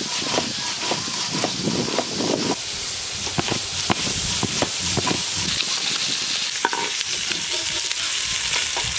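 Pieces of fish frying in hot oil in a kadai (wok), a steady sizzle broken by irregular clicks and scrapes of a spatula turning them in the pan.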